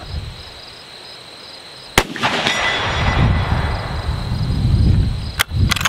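A single shot from a Ruger American Ranch Rifle chambered in 350 Legend, about two seconds in, its report rolling on and slowly dying away over the next three seconds. Faint crickets before the shot, and a few sharp clicks near the end.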